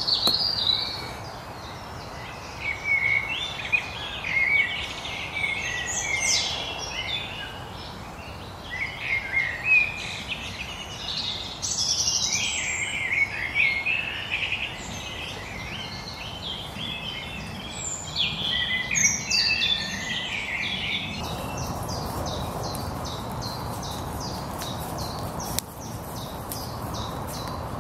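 Several wild birds singing and chirping over one another, many short trills and calls overlapping, over a steady background hiss that grows louder about three-quarters of the way through.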